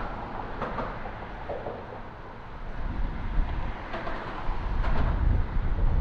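Outdoor background noise: a steady hiss with a low rumble that grows louder about halfway through, and a few short faint chirps or ticks.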